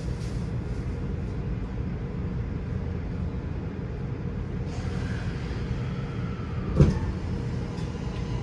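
Inside a Toei 6500 series subway car: a steady low rumble of the train, with a hiss setting in about five seconds in and a single sharp knock near seven seconds in.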